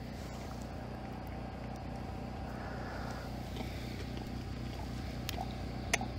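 Steady low hum of a running motor, such as a fan or generator, with a couple of sharp clicks near the end.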